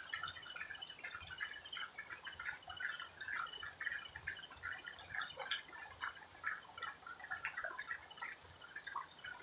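Pre-dawn outdoor ambience among leafy plants: a dense, irregular patter of short chirps and clicks, with a faint repeating trill at times.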